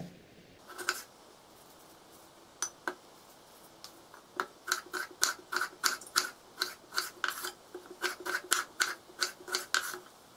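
Kitchen knife cutting a tomato on a wooden cutting board. A few scattered cuts come first, then a quick run of chops, about three a second, each ending in a sharp knock of the blade on the board.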